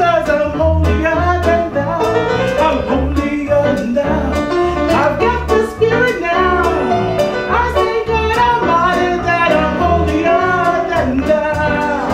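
A woman singing a musical-theatre song with live band accompaniment: held, wavering vocal notes over a pulsing bass line and a steady beat.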